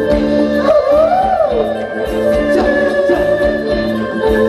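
Live Thai ramwong dance-band music: steady held tones over a regular drum beat, with a melody that slides up and back down about a second in.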